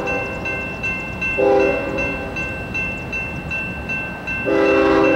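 Diesel locomotive horn on a Norfolk Southern grain train sounding for a grade crossing: a short blast about a second and a half in, then a long one starting near the end. Under it, a level-crossing warning bell rings about twice a second over the rumble of the passing train.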